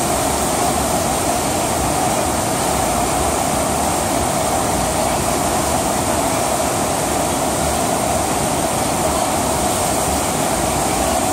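Steady rush of pumped water sheeting up the surface of a FlowRider wave-simulator ride, unbroken and even in level.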